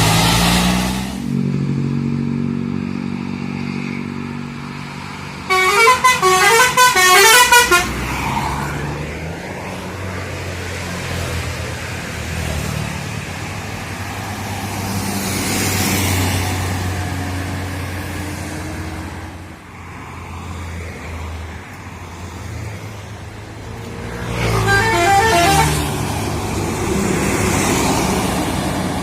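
Buses passing on a road, with two bursts of a multi-tone 'telolet' musical bus horn playing a quick stepping tune: one about six seconds in lasting about two seconds, and a shorter one near the end.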